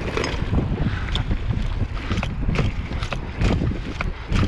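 Mountain bike ridden along a dirt singletrack: tyres rumbling over the trail, frequent clicks and rattles from the bike, and wind buffeting the microphone.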